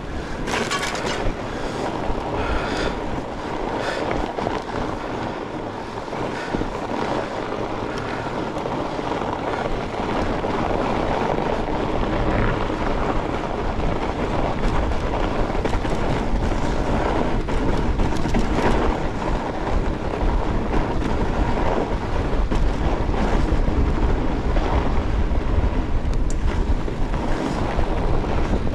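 Riding noise from a fat bike on a trail: a steady rush of tyre noise and wind on the microphone, with a few knocks in the first seconds and a low wind rumble growing stronger through the second half.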